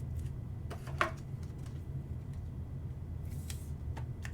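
Trading cards being handled: a few soft clicks and light knocks of cards and card holders, about a second in and again near the end, over a steady low hum.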